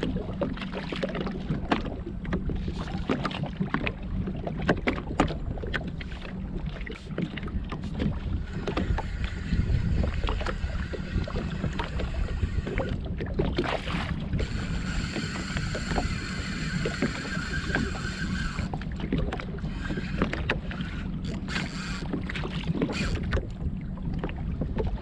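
Water slapping and knocking against the hull of a Sea-Doo GTX jet ski, with wind on the microphone. A steady high whirr comes in for about four seconds past the middle and stops abruptly.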